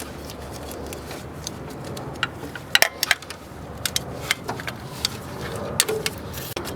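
Hand tools and loose steel bolts clicking and clinking against each other and the metal engine parts as the thermostat housing bolts are undone by hand. The taps come irregularly, with a sharp cluster about three seconds in.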